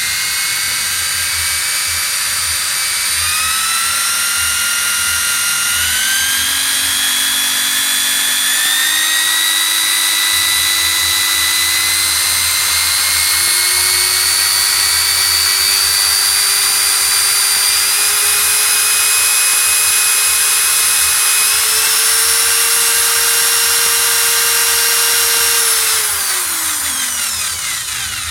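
Electric drill spinning a Fisher & Paykel washing-machine motor used as a three-phase generator. A high whine climbs in pitch in several steps as the speed is ramped up, then falls away over the last two seconds as the drill winds down.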